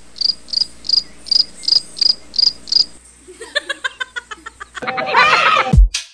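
Cricket chirps, eight evenly spaced chirps at about three a second over the first three seconds: the comic 'awkward silence' cricket sound effect. Voices follow, and near the end dance music with a heavy bass beat comes in.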